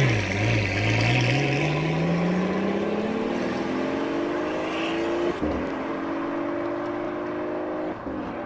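Pagani Huayra's twin-turbo 6.0-litre Mercedes-AMG M158 V12 accelerating away, its pitch rising steadily for about five seconds. A brief break comes about five seconds in, an upshift, and it pulls on at a steadier pitch with another short drop near the end.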